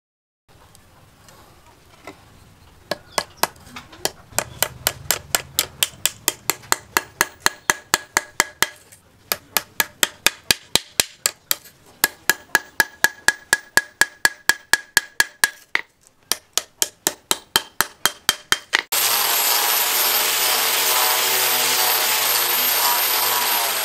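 A hammer tapping brass pins through the wooden handle scales of a knife on a steel post anvil to peen them over: quick, ringing metallic strikes, about three a second, with a short break partway through. About nineteen seconds in, it changes to an angle grinder running steadily against the handle.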